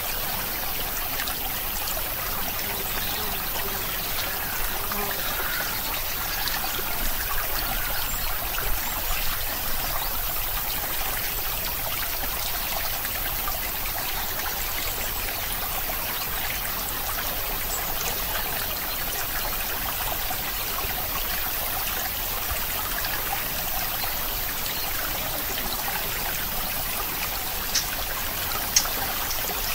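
Steady, even hiss like running or trickling water, with two short sharp clicks near the end.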